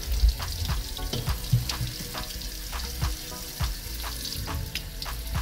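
Tap water running through a plastic colander of food pieces into a stainless-steel sink, a steady splashing hiss with scattered clicks and knocks as the pieces shift in the colander.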